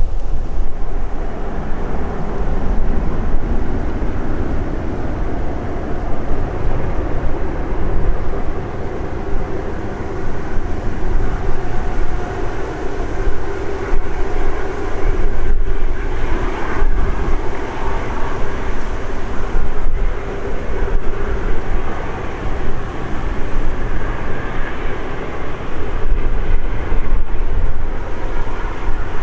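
Airbus A330-300 jet engines running at taxi power, a steady whine over a low rumble of wind on the microphone.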